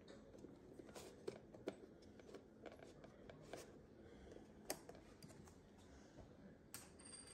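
Faint, scattered clicks and taps of small plastic makeup pots and lids being handled and set down on a table, against near-silent room tone.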